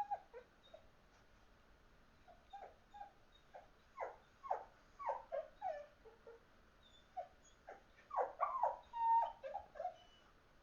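Dog whining and crying in a string of short high cries, several sliding down in pitch, bunching together with one longer held whine near the end: separation anxiety after her owner left the house.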